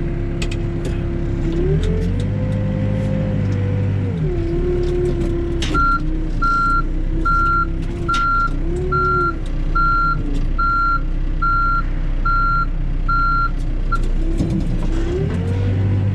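Four-wheel-drive backhoe's diesel engine revving up and settling as the machine is moved, with its reverse alarm beeping about ten times, a little more than once a second, through the middle of the stretch.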